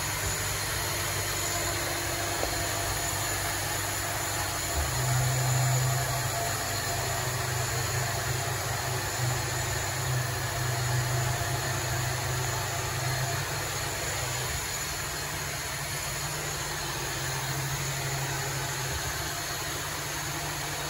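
Steady low mechanical hum of running machinery with a hiss over it; the hum grows stronger for several seconds from about five seconds in, and again briefly near the end.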